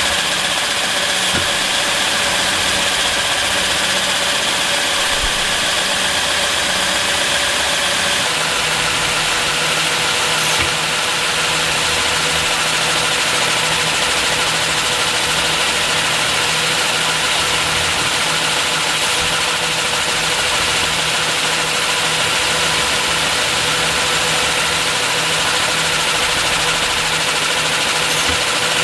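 Small electric air compressor feeding a Lego pneumatic crane, running steadily to keep up pressure while the crane cycles. Its pitch drops slightly about eight seconds in, with a few light clicks as the crane works.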